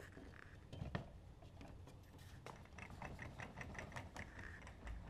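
Faint clicks and light knocks, with one stronger knock about a second in and a run of quick ticks in the second half, as the downrigger mount's metal post is worked in the kayak's flush-mount rod holder to test whether it sits loose.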